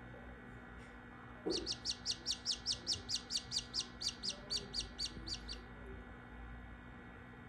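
Newly hatched Australorp chick peeping as it is freed from its shell: a fast run of about twenty short, high, falling peeps, roughly five a second, starting about a second and a half in and stopping after about four seconds.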